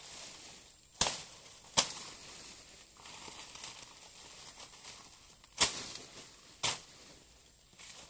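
Machete strikes on a banana plant, four sharp chops: two about a second apart near the start and two more a little after halfway. Dry banana leaves crackle and rustle between them.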